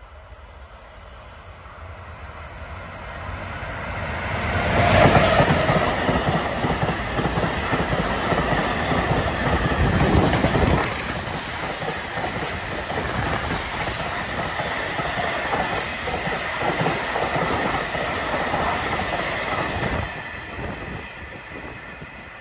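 Freight train of tank wagons passing close, its wheels running on the rails with a steady high-pitched ring. The sound builds over the first few seconds and drops off shortly before the end.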